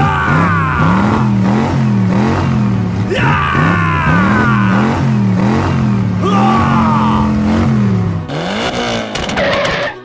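Engine-revving sound effect for a toy bus stuck in sand, its pitch rising and falling over and over, like a vehicle spinning its wheels. It is joined three times by squealing tyres, and the engine sound stops a little before the end.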